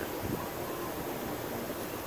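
Steady background noise, an even hiss with no distinct knocks, clicks or other events.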